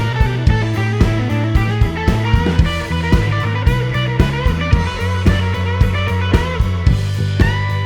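Background rock music with guitars and a steady drum beat.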